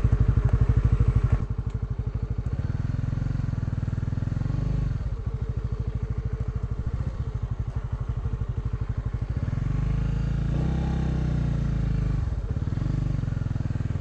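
Motorcycle engine running at low riding speed, its note easing off about a second and a half in, then rising and falling again around ten seconds in as the throttle is worked.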